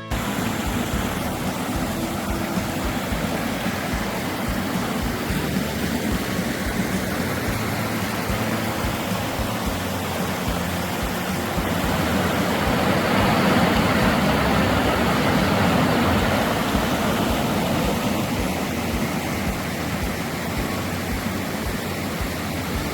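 Steady rush of flowing water, a creek or small waterfall, swelling a little about halfway through.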